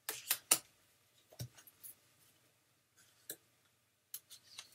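Stiff picture flashcards and paper word cards being handled and shuffled: a series of short clicks and rustles, the sharpest in the first half second, then scattered smaller ones.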